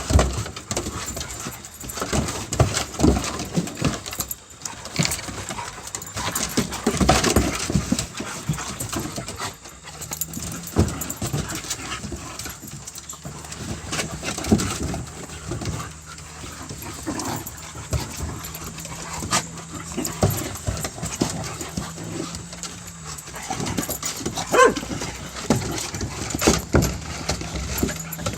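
A group of dogs making small sounds with irregular scuffs and knocks as they move about, and one brief call near the end. A steady low hum starts about a third of the way in.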